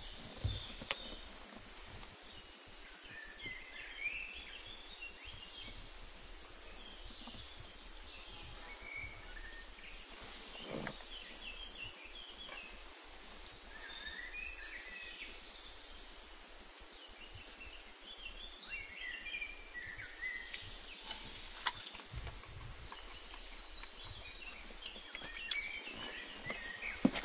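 Woodland ambience: small birds chirping and warbling on and off over a faint, steady background hiss. A few soft clicks and knocks come through, one about halfway and several near the end.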